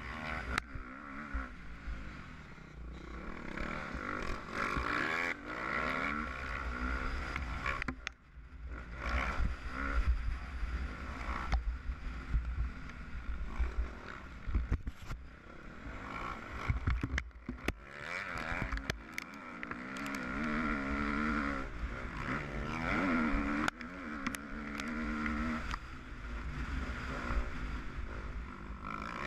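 Motocross dirt bike engine revving up and down as it is ridden over a rough dirt track, heard from a camera mounted on the bike, with wind buffeting the microphone and knocks from the bike jolting over ruts. The engine drops away briefly twice, about eight and seventeen seconds in.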